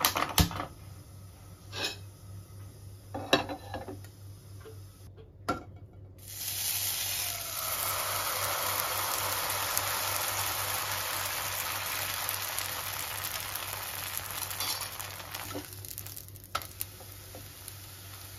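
A handheld spark gas lighter clicks a few separate times at a stove burner. About six seconds in, pancake batter poured into a hot oiled non-stick pan starts sizzling loudly and evenly, then fades toward the end.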